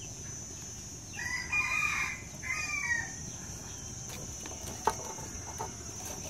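A rooster crowing once, starting about a second in and lasting about two seconds in two parts. A steady high insect drone, likely crickets, runs under it, and there is a single sharp click near five seconds.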